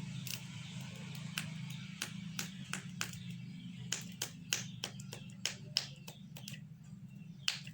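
Aluminium foil medicine packaging being pressed and worked by hand, giving irregular sharp clicks and crackles that come more often from about four seconds in, over a low steady hum.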